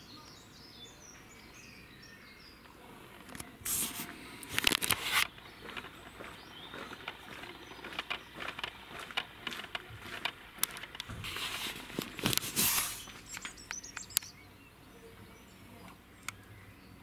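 Rustling and clicking handling noise close to the microphone, in two loud spells of rustling with scattered sharp clicks between them, over faint birdsong that is heard near the start and again near the end.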